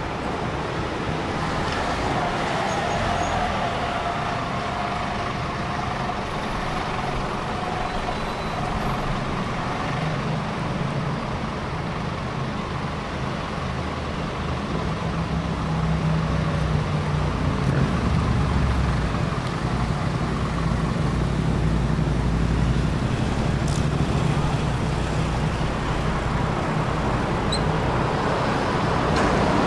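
Busy city street traffic: a steady wash of passing cars and heavier vehicles, with a low engine rumble growing louder in the second half.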